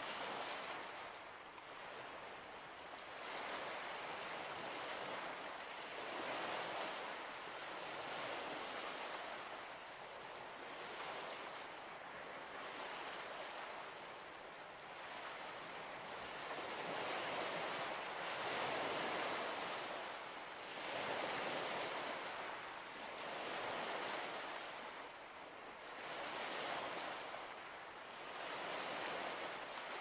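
Small waves washing onto a shore: a steady rush of water that swells and ebbs every two to three seconds.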